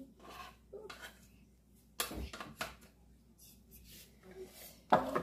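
Spoon scraping berry purée off a Thermomix lid and knocking against the lid and bowl, with small clicks and scrapes and two sharp knocks, the loudest about two seconds in and another near the end.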